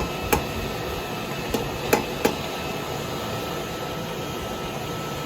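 Five light, sharp metallic strikes of a hammer on hot steel in blacksmith work, two at the start and three close together about two seconds in. They sound over a steady rushing hiss.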